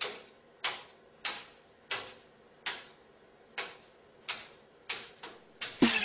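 A series of about ten sharp taps or knocks, roughly one every two-thirds of a second, coming faster near the end. Music with a steady beat comes in just before the end.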